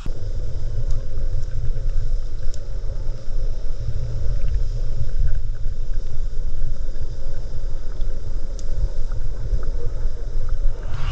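Audio recorded with the camera submerged in a river: a steady low rumble of water moving against the microphone, with a few faint ticks. It starts and stops abruptly.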